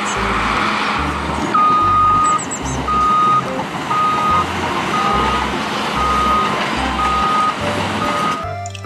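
Caterpillar CS-533E single-drum soil compactor's diesel engine running steadily, with its reversing alarm beeping about once a second from about a second and a half in.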